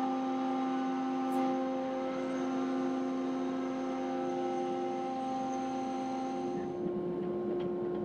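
Woodshop machinery running idle, the jointer-planer with its dust collection switched on but no board yet going through: a steady hum made of several held tones.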